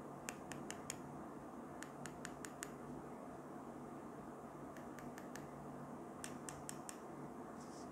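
Sharp plastic clicks in four quick runs of four or five, about five a second, from a paracord survival keychain's whistle end as fingers turn its ridged wheel.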